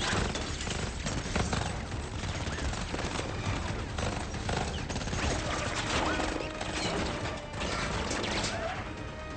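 Rapid automatic gunfire from several guns, with many shots in quick succession, over action film music.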